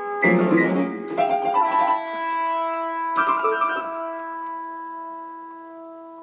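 Piano-sounding keyboard music: a quick run of notes and chords, then one long note held and slowly fading away.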